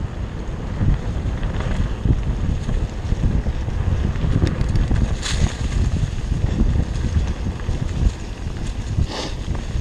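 Wind buffeting the microphone of a camera on a moving trail bike, over the rumble of tyres on a dirt trail. Two short hissing bursts come about five seconds in and again near the end.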